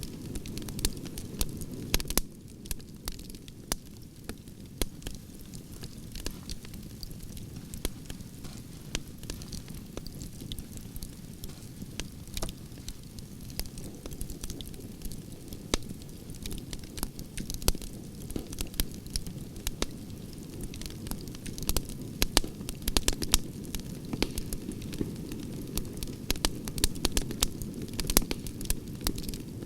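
Campfire of burning logs crackling, with frequent sharp pops and snaps over a steady low rushing of the flames.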